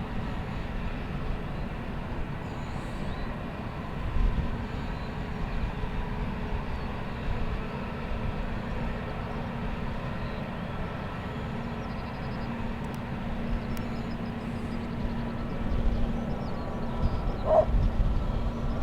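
Airbus A380 taking off on the power of its four jet engines: a deep rumble with a steady low hum, growing louder in the last few seconds.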